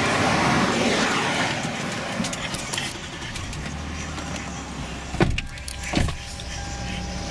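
A car passing on the road, its tyre and engine noise swelling and fading over the first couple of seconds. Then the low steady hum of a car cabin, with two sharp knocks a little under a second apart.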